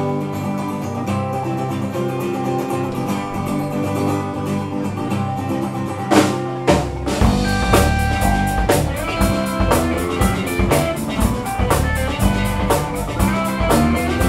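Live alt-country band playing an instrumental intro. Guitars play alone at first, then drums and bass guitar come in about six and a half seconds in, with a steady beat.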